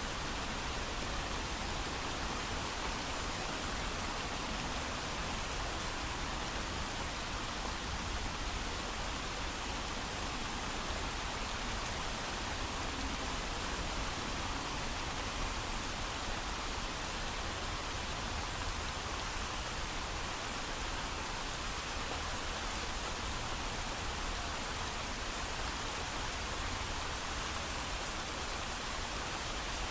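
Heavy rain falling steadily, an even, unbroken hiss of drops with no thunder.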